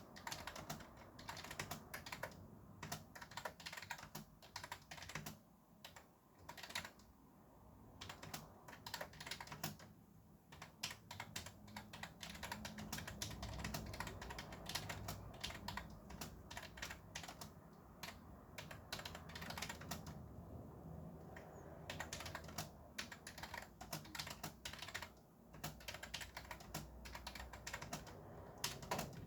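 Fast typing on a computer keyboard: dense runs of key clicks broken by a few brief pauses, over a low traffic rumble.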